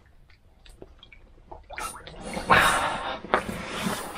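Water sloshing and splashing in an ice-fishing hole as a live whitefish is let go back into it: a few faint drips first, then loud splashing starting about two and a half seconds in.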